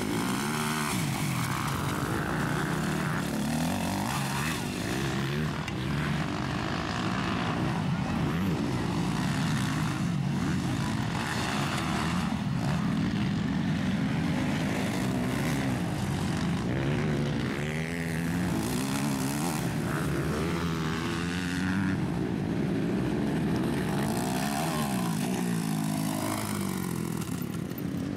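MX2 motocross bike engines revving hard and dropping back as riders accelerate through the track, with several bikes heard at once and their pitches rising and falling over each other.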